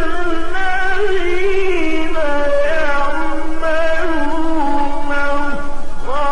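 Music: a slow melodic chant, one voice holding long, wavering notes that glide gently from pitch to pitch.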